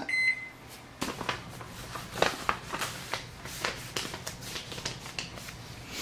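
A microwave oven's keypad beeps once, a short high tone right at the start. Soft rustling with scattered light clicks follows.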